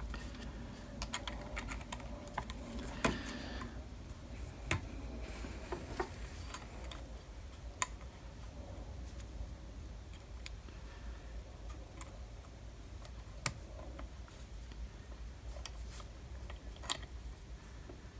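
Scattered light clicks and taps at uneven intervals: circlip pliers and a circlip knocking against a bearing and its aluminium housing as the circlip is worked into its groove.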